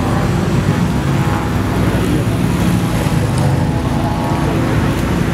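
Engines and exhausts of modified cars driving slowly past in a line, a steady rumble, with one engine revving up near the end.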